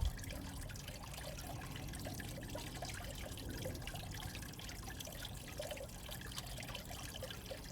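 Faint water trickling and dripping, a steady wash of many small splashes and drops.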